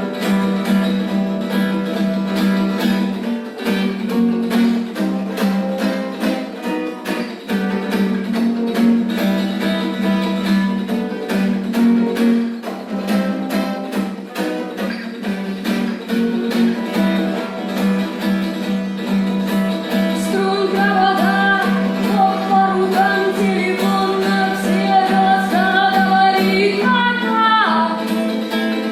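Music: plucked guitar with many sharp percussive strikes, and a sung or melodic line coming in about two-thirds of the way through.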